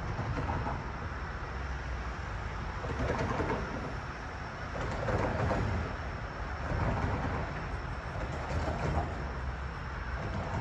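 Low rumble of a train at a station platform, with a thin steady high whine. Pigeons coo over it several times.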